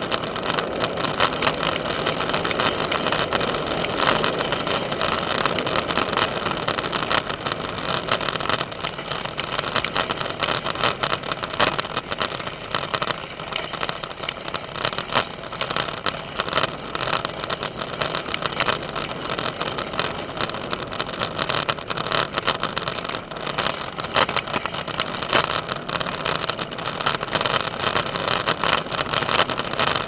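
Bicycle tyres rolling over a gravel trail: a steady crunching rattle of gravel under the wheels.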